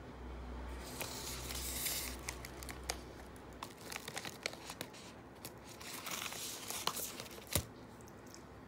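Loacker Napolitaner wafer packet being torn open by hand, its wrapper crinkling and tearing with scattered crackles, then one sharp knock near the end.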